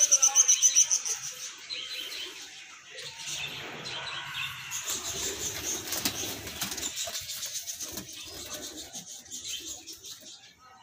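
A flock of rose-ringed parakeets calling in an aviary: a rapid run of loud, shrill notes in the first second, then softer chattering calls.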